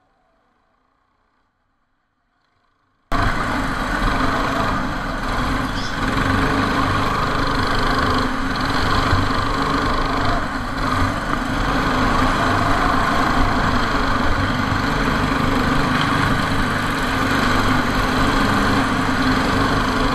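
Silence for about three seconds, then go-kart engines cut in abruptly: the dense, steady engine noise of karts racing, heard from a camera mounted on a kart.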